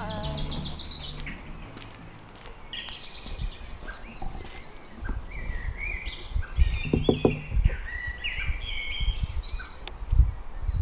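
Small birds chirping and calling in quick, short phrases, with a few dull low thumps, the loudest about seven and ten seconds in. The tail of a song fades out in the first second.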